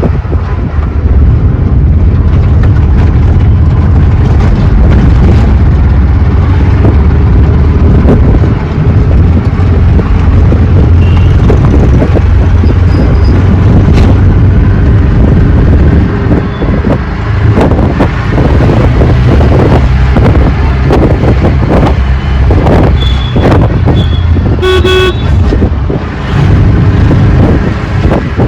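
Auto rickshaw engine running with road and wind noise as the rickshaw moves through traffic. A vehicle horn toots briefly near the end.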